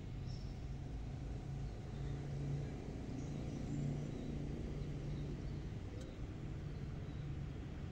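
Outdoor ambience: a steady low hum like distant traffic, with faint high bird chirps now and then.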